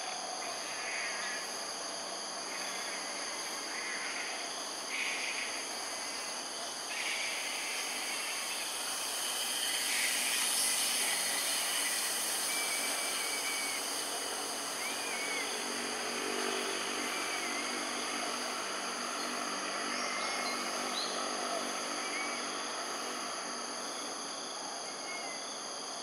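Steady high-pitched insect chorus, with short chirps every second or two from about halfway through and a faint low hum in the background.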